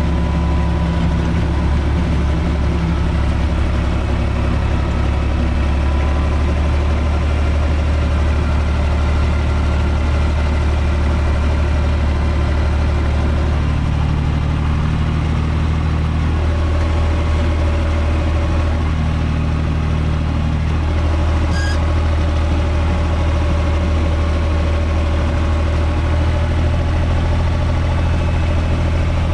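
UTB 445 tractor's four-cylinder diesel engine running steadily, heard from inside the cab. Its note shifts slightly about halfway through and again a few seconds later, and there is one brief click.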